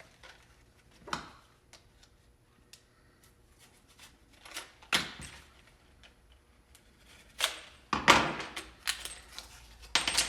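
Screwdriver bits being pushed into plastic bit holders and handled: scattered small clicks and ticks, with a few louder clattering knocks.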